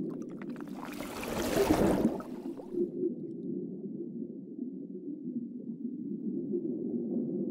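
Low, steady underwater-style ambient rumble. A rushing whoosh of noise swells in about a second in and dies away after about three seconds.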